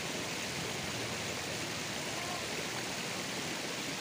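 River water rushing and babbling steadily over stones, an even, unbroken wash of noise.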